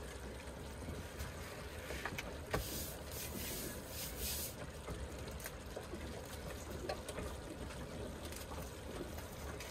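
Light taps and a brief rustle as a cardboard game board and its pieces are handled on a wooden table, the rustle about two and a half seconds in, over a low steady hum.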